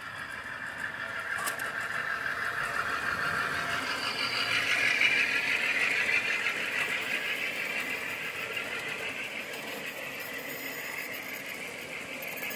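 G-scale model freight train of grain hopper cars, behind an Aristo-Craft Dash-9 with a TCS sound decoder, rolling past on garden track. The running noise swells to its loudest about halfway through as the cars pass close, then eases off.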